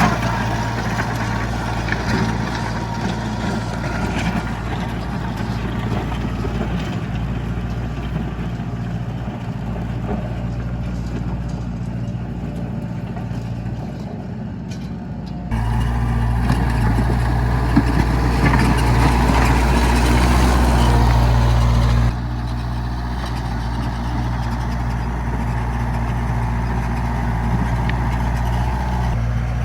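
Heavy construction machinery engine running steadily with a low hum. The level jumps up suddenly about halfway through and drops back a few seconds later.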